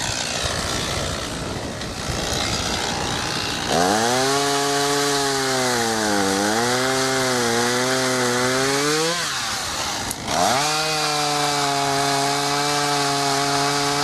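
ECHO CS-500P 50.2 cc two-stroke chainsaw revved up to full throttle about four seconds in, its pitch sagging as it works through wood, falling off briefly after about nine seconds, then revved high again and held steady.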